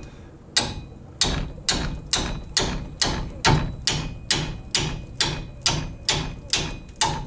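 Repeated hammer blows, about two a second, each with a short metallic ring: a hammer striking at a seized stabilizer-link nut to break it loose.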